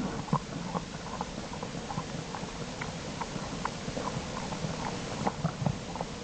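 American black bears shifting in a den: scattered soft knocks and scuffs at irregular intervals over a steady hiss.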